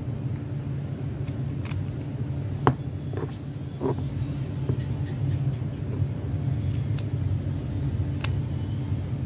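Small sharp clicks of little plastic wire connectors being handled and pushed into the sockets of a Bluetooth MP3 module board, the sharpest about two and a half seconds in, over a steady low rumble.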